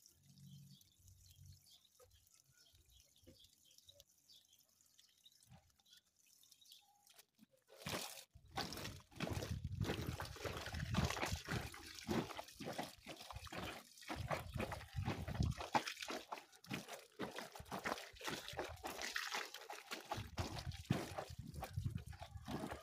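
Water splashing and pouring in an irregular run, with many short knocks and slaps, starting about eight seconds in after a faint, near-quiet stretch.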